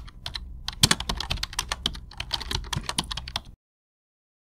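Computer keyboard typing: a rapid, irregular run of key clicks that cuts off suddenly about three and a half seconds in.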